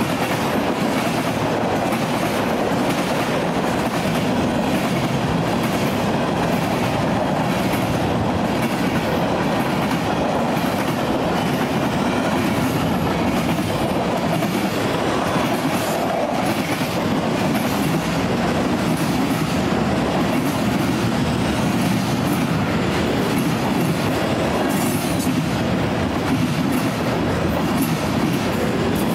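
Freight train of tank cars and loaded flatcars rolling past at steady speed: a continuous wheel-on-rail rumble with regular clickety-clack as the wheels cross rail joints.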